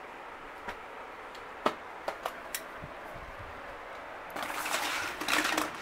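Fabric curtain rustling loudly against the phone as it is brushed aside, for about the last second and a half. Before that come a few sharp clicks over a steady hiss.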